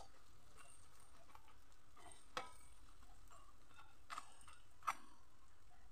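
Sesame pitha shallow-frying in oil in an aluminium kadai: a faint sizzle with a few sharp clicks, the loudest a little before the end, as a metal slotted spoon turns the cakes.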